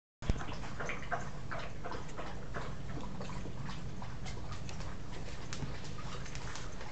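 Cocker spaniel chewing and mouthing a stuffed plush toy: irregular small wet clicks and smacks, a few a second, over a steady low hum.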